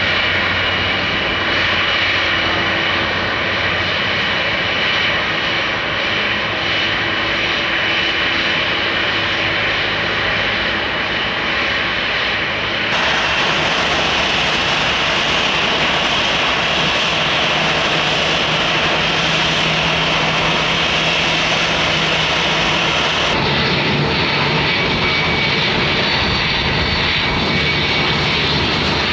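Jet airliner engines running loud and steady: a broad rush with a high whine on top. The sound changes abruptly twice, about halfway through and again near the end.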